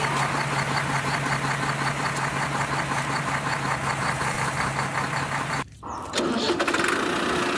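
Idling engine sound with a steady, even knock. It cuts out abruptly near six seconds in and comes back as a different, higher engine drone.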